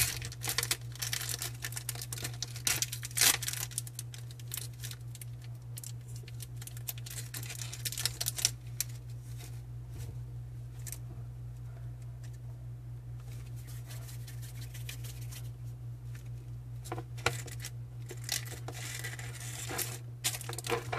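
Thin plastic packet of eraser clay crinkling and tearing as it is opened and the clay pulled out. The rustles are loudest in the first few seconds and come again more quietly later on. A steady low hum sits underneath.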